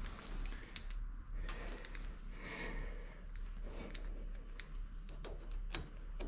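Scattered faint metallic clicks and ticks of a socket-head cap screw and T-handle hex key being handled and fitted back into a Monarch 10ee lathe's compound rest.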